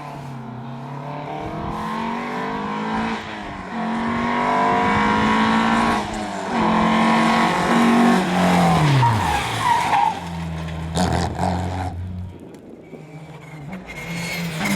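Rally car engine revving hard and climbing in pitch through a couple of gear changes, then dropping sharply as the driver lifts off and brakes. A steadier lower engine note follows, fading briefly before the revs pick up again near the end.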